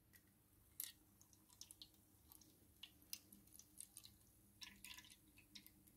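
White vinegar poured from a plastic bottle into a plastic tub over rusty metal keys, faintly splashing and dripping with scattered small clicks.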